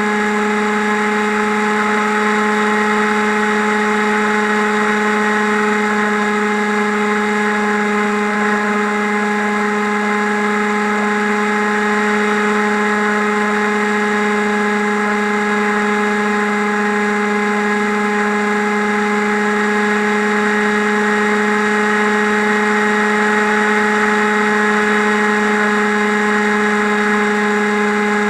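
FPV drone's electric motors and propellers whining at one steady pitch, a constant buzzing hum with no change in throttle.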